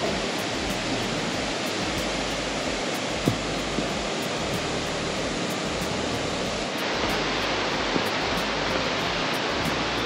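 Cascading mountain creek rushing steadily down a rocky gully, getting a little louder about seven seconds in.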